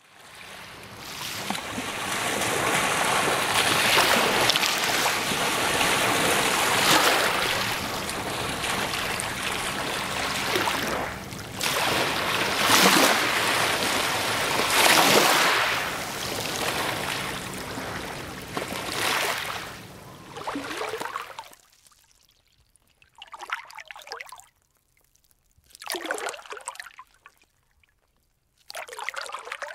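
Small lake waves washing onto a pebble shore, swelling and easing every few seconds. From about two-thirds of the way in the waves stop, leaving short separate splashes of water a couple of seconds apart.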